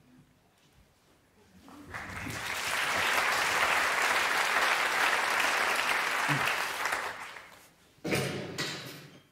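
Theatre audience applauding, swelling in about two seconds in and dying away after about seven seconds. A sudden loud sound breaks in near the end.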